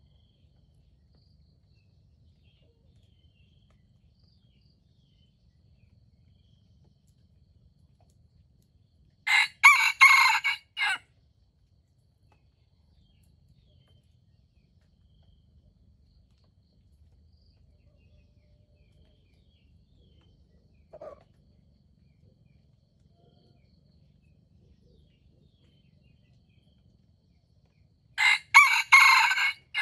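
A red junglefowl rooster crowing twice, about nine seconds in and again near the end; each crow is a short, broken cock-a-doodle-doo of about a second and a half.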